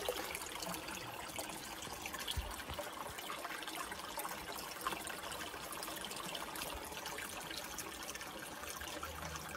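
Steady trickling of running water, an even hiss that carries on without a break.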